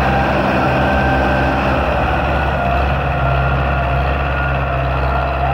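Belarus tractor's diesel engine running steadily under heavy load, with a low drone and a faint whine above it, as it hauls an overloaded sugarcane trolley.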